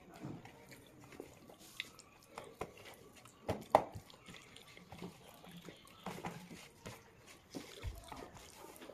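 Close-up eating sounds: fingers squishing and mixing rice with fish curry against a paper plate, with wet chewing sounds and two sharper clicks a little before halfway.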